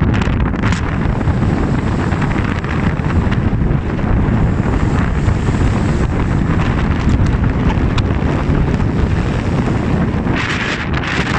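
Strong wind buffeting the microphone in a steady low rumble, with a brighter hissing rush rising about a second before the end.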